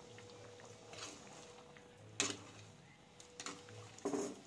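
Thick curry gravy simmering in an aluminium pot, with a few separate plops of bubbles bursting about a second apart, then a steel ladle stirring through it near the end.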